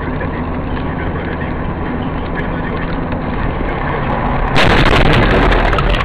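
Car driving, its steady road and engine noise heard through a dash-cam microphone. About four and a half seconds in, a sudden loud burst of crashing noise lasts about a second and a half.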